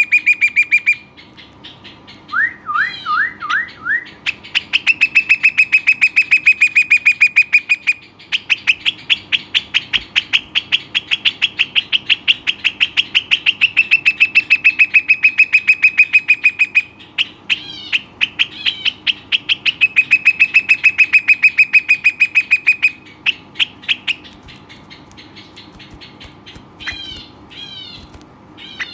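Rock nuthatch singing: loud, rapid trills of one repeated note held for several seconds at a time, broken by short runs of rising, upslurred notes and brief pauses.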